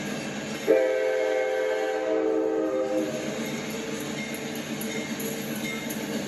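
A passing train runs, then an Amtrak P42DC locomotive's multi-chime air horn sounds a chord about a second in. The horn is loudest for a couple of seconds, then carries on more softly and blasts again near the end.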